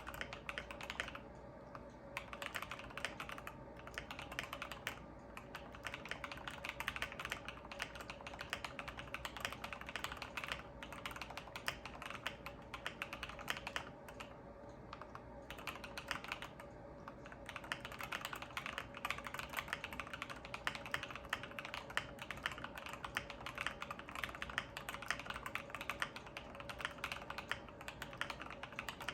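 Typing on a custom-built Feker IK75 mechanical keyboard with hand-lubed switches: a rapid, continuous clatter of keystrokes broken by a few short pauses.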